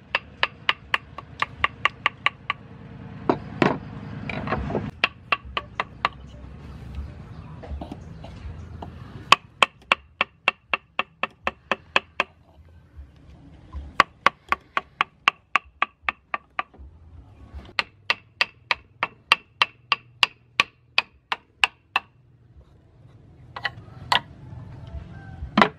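Steel carving chisel being tapped into wood by a hammer, in quick runs of sharp strikes, about four a second, with short pauses between runs. Each strike has a slight ring, and there is a brief, louder scraping noise about four seconds in.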